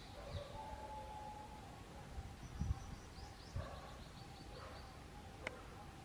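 Faint wild bird calls: a quick run of short high chirps starting about halfway through, over a faint steady background tone. A few dull low thumps are heard before and around the middle, the loudest just before the chirps, and one sharp click comes near the end.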